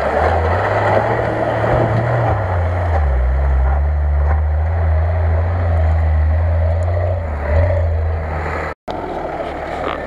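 A 4x4 off-road vehicle's engine running under load as it drives through mud and passes close by. The engine note rises for the first couple of seconds, then settles lower and holds steady. It cuts off abruptly near the end.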